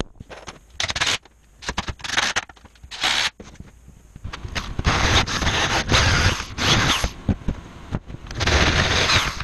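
Scraping and handling noises: three short scraping bursts in the first few seconds, then two longer stretches of scraping.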